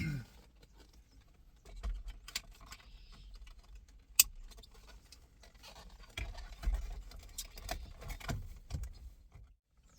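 Hands working on a car steering wheel: scattered light clicks and rattles, one sharp click about four seconds in, and a run of knocks and handling bumps from about six to nine seconds.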